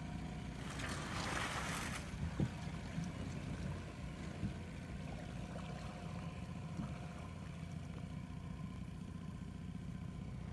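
Water sloshing and splashing around a wading man and a 14-foot aluminium jon boat as he pushes it off the shore, with a rush of splashing about a second in and a couple of light knocks soon after, over a steady low rumble.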